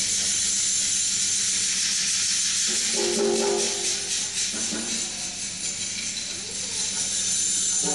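Music for an Afro dance: a continuous, dense shimmer of jingling hand percussion, with a brief low pitched tone about three seconds in.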